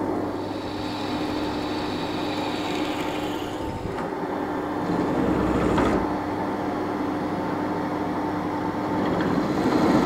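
Machine spindle running with a steady hum while a small cutter machines a metal ring held in a three-jaw chuck. A couple of light clicks come about four and six seconds in.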